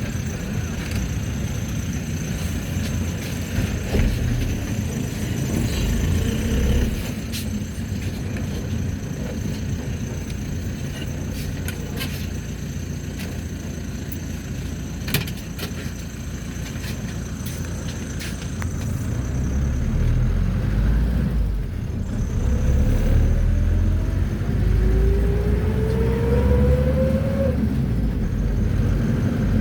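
Mercedes-Benz T1 minibus heard from inside the cabin while driving: a steady engine and road rumble with a few short rattles and knocks. Later the rumble grows heavier, and a rising whine comes in for a few seconds.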